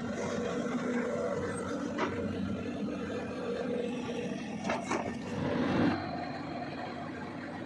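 Diesel engine of a CAT 320D L long-arm excavator running steadily, with a sharp knock about two seconds in, two more just before five seconds, and a brief swell of noise near six seconds.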